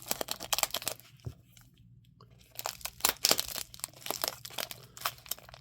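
Crinkling and tearing of packing material as the next pocket knife is unwrapped: a run of sharp crackles, with a short pause after about a second.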